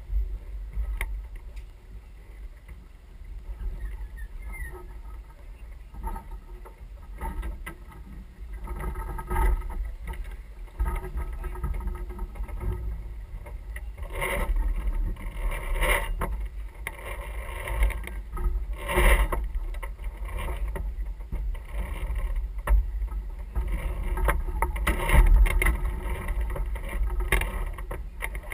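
Keelboat sailing under way: a steady low wind rumble on the microphone and water rushing along the hull. Louder surges of noise come about halfway through and again near the end.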